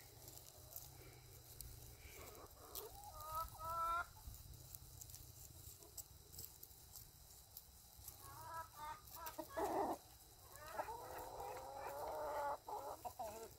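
Chickens clucking and calling: a few short calls about three seconds in, a quick run of them around eight to ten seconds, and a longer drawn-out call near the end.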